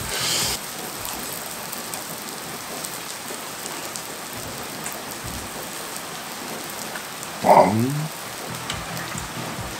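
Steady hiss of a pork-belly green-onion pancake sizzling in oil in a frying pan. A short voiced exclamation comes about three-quarters of the way through.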